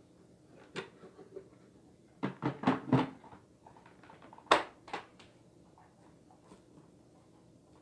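A few sharp knocks and clatters: a quick cluster about two to three seconds in, then a louder pair about four and a half seconds in, with no motor running.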